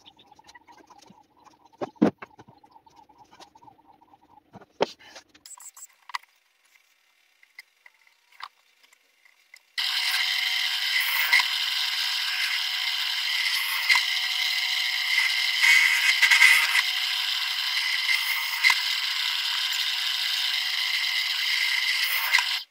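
Faint taps and scrapes of marking out pine boards, then about ten seconds in a benchtop drill press runs steadily as its bit bores into a pine board, swelling a little mid-cut and cutting off abruptly at the end.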